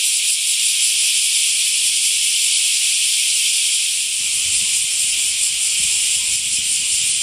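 Chorus of cicadas in the trees: a loud, steady, high-pitched buzzing that does not let up.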